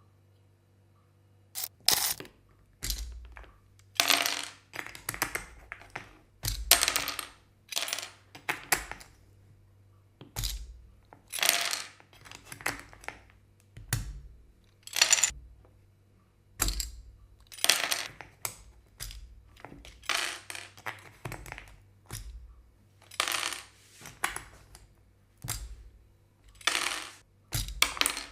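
Plastic keyboard keycaps clicking and clattering in irregular clusters about a second or two apart, as they are swapped on a Kemove mechanical keyboard.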